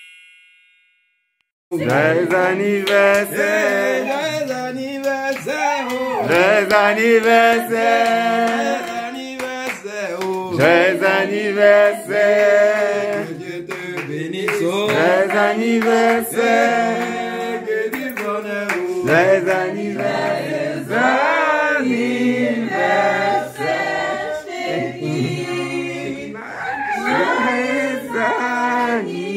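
Group of voices singing a song together, starting about two seconds in after a short silence.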